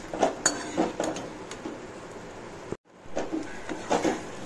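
Slotted metal spatula scraping and clicking against a kadai as fried plantain pieces are tossed in thick jaggery syrup to coat them. The sound cuts out briefly just before three seconds in, then the scraping resumes.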